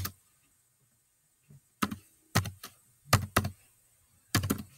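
Typing: quick, sharp taps of fingers on a keyboard or touchscreen. There is one sharp tap at the start, a pause of over a second, then short bunches of two or three taps roughly every half second to second.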